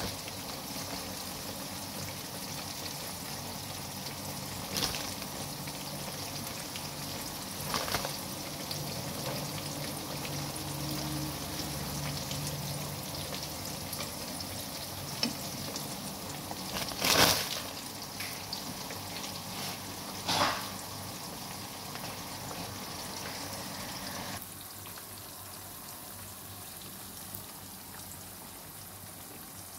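Battered chicken tenders deep-frying in a pan of hot oil: a steady sizzling hiss. A few sharp knocks cut through it, the loudest about halfway, and the sizzle drops a little in level near the end.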